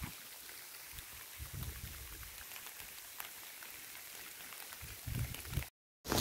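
Light rain falling: a faint, even hiss with scattered ticks of drops. There is a brief low rumble about five seconds in, and the sound cuts off abruptly near the end.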